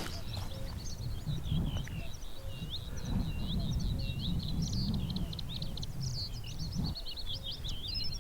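Bluethroat singing: an unbroken run of varied quick notes and short rising whistles, over a low rumble of wind noise.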